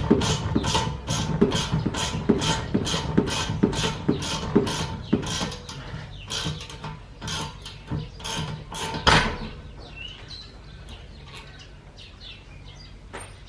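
Ratchet wrench worked in quick, even strokes, about two to three clicks a second, on the suspension bolts during a rear coilover install. A single loud metallic clack comes about nine seconds in, followed by quieter handling of tools and parts.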